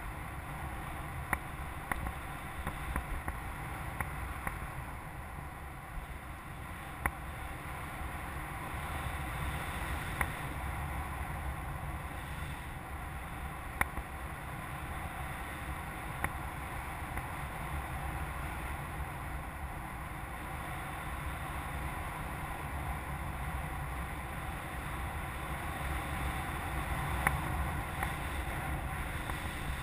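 Wind rushing over a camera microphone on a hang glider in flight under tow: a steady low rumble of airflow, with a few short light clicks scattered through it.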